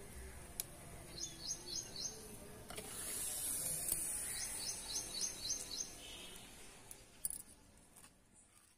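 A small bird chirping: two quick runs of short, high, falling notes, about four and then about six, over a steady hiss.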